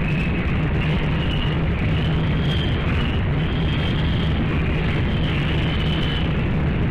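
Steady, loud rumble and hum of a pig farrowing shed, with faint high-pitched squeaks recurring about once a second.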